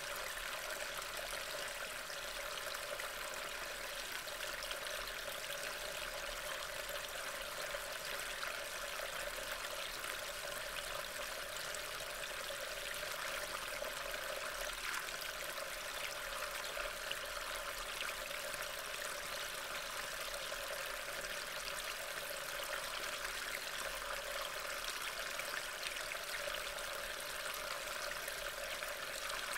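Steady, unbroken hiss of falling rain.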